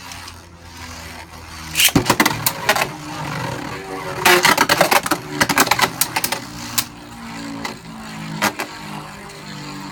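Beyblade Burst tops spinning in a plastic stadium with a steady whirring hum, clashing with sharp clacks: one hard hit about two seconds in and a dense run of rapid clacks around four to six seconds in. Vise Leopard's frame scrapes as it attacks, making its noise very aggressive.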